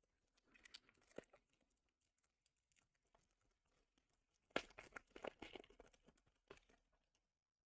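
Foil wrapper of a Pokémon TCG booster pack being torn open and crinkled by hand: a short stretch of crackling about a second in, then a louder burst of tearing and crinkling from about four and a half seconds in.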